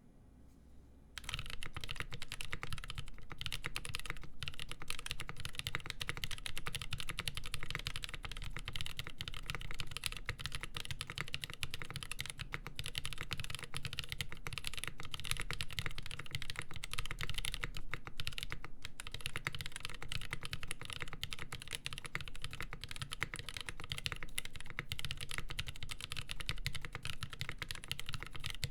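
Continuous fast typing on a custom mechanical keyboard with a full polycarbonate plate, GMK Olivia keycaps and lubed Nolive Cream linear switches, starting about a second in.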